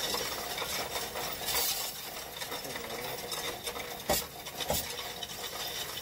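Loose coins clinking and rattling in a Coinstar coin-counting machine as handfuls are pushed in from its tray, with two sharper clacks a little past the middle.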